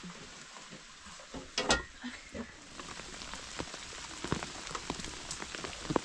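Rain falling, with many sharp individual drop hits over a steady hiss; it grows heavier about three seconds in. A single louder knock comes about a second and a half in.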